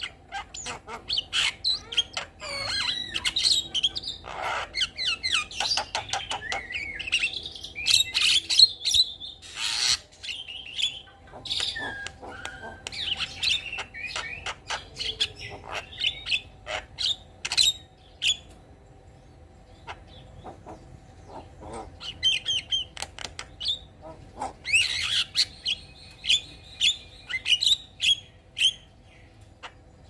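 Javan myna (jalak kebo) singing: a fast, varied run of whistles, chattering and sharp clicks. It drops to a lull about two-thirds through, then resumes with a burst of quick repeated notes.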